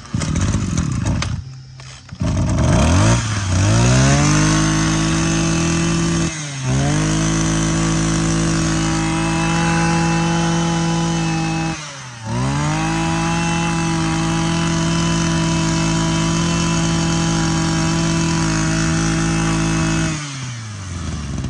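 Maruyama BC20 20cc two-stroke brush cutter being pull-started with its spring-assisted recoil: a few pulls before it catches about two seconds in, having been slow because fuel had not yet come up to the carburettor. It then runs steadily, with two brief drops in speed and recoveries, and winds down as it is shut off near the end.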